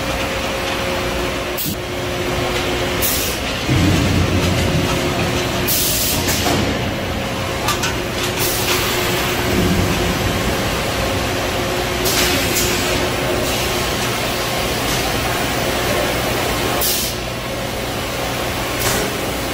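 Automated retort-basket handling line running: a steady machine hum from conveyors and drives, with short hisses of air released about seven times and a low rumble of the baskets being moved twice.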